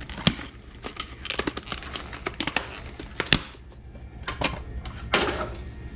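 Packaging crinkling and rustling as a new front sprocket is unwrapped and handled, with many sharp clicks and taps and a longer rustle about five seconds in.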